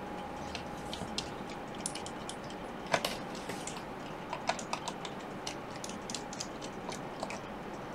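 Small, scattered clicks and taps of a screwdriver and fingers working the metal bracket over the display cable connectors of an opened MacBook Pro A1706 logic board, with one sharper click about three seconds in.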